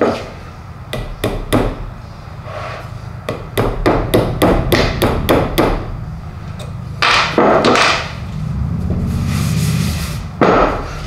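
Small hammer tapping on the cast-iron body of a Wilton Bullet vise, working at a stuck pin. It strikes a few single taps, then a quick run of about a dozen light taps, two heavier knocks, and a last strike near the end, with a brief rubbing sound shortly before it.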